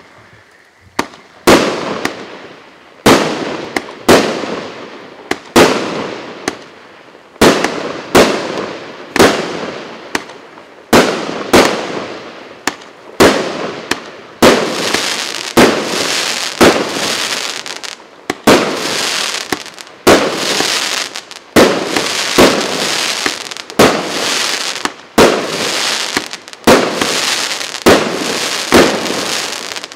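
A 25-shot, 1-inch firework cake (salute battery) firing its shots in sequence, about one a second with some in quick pairs, each a sharp report that dies away quickly. From about halfway through, a steady hiss fills the gaps between shots.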